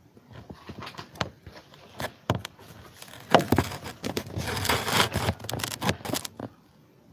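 Crackling, rustling noise close to the microphone, in irregular bursts with sharp clicks. It is loudest in the middle and stops abruptly about six and a half seconds in, like handling noise from the recording device being gripped or moved.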